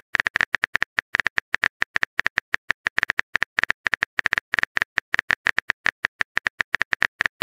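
Phone keyboard typing sound effect: a rapid, even stream of short taps, about eight to ten a second, as a text message is being typed.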